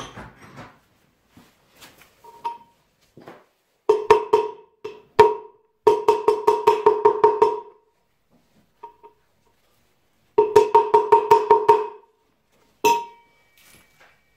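A ratchet wrench clicking in several quick runs, about eight clicks a second, each click with a short metallic ring, as the bolts of a scooter's steel brake disc are turned.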